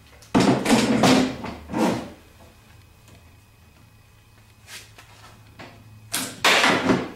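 Metal and plastic parts of a Renault Fluence Z.E. battery pack scraping and clattering as they are worked loose and pulled off. It comes in two bursts: one about a second in lasting a second or two, and another near the end.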